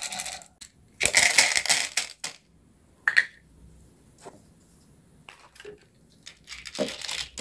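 Dried corn kernels poured from a small plastic bowl into a plastic toy frying pan: a rattling clatter for about a second. A few light clicks follow, and another rattle of kernels comes near the end as the pan is handled.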